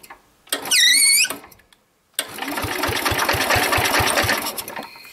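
The garden tractor's electric starter cranking the engine at a steady chug of about seven strokes a second, for a little over two seconds, without it catching, and fading near the end: the jump starter powering it is running low. Before that, about half a second in, a brief high-pitched squeal.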